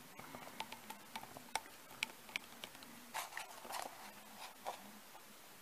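Small screwdriver working the screw of a circuit board's screw terminal block as a stranded wire is fitted into it: scattered light clicks and scrapes, busiest about three to four seconds in.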